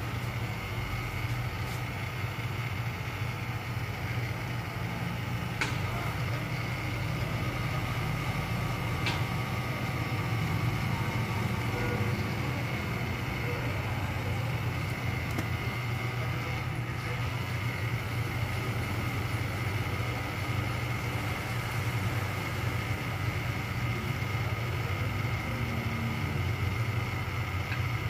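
Battery-powered air nail dryer's small fan motor running steadily, a constant hum with a thin high whine over it.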